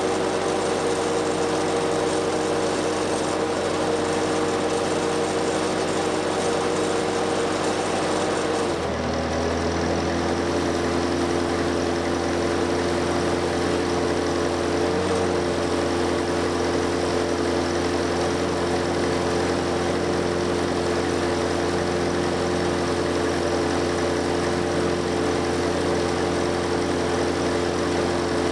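Lincoln SA-200 engine-driven welder running steadily. About nine seconds in, the engine's pitch sags slightly and a low hum grows stronger as the arc is struck and the generator takes up the welding load. It then keeps running evenly under load, with no bogging down or misfiring.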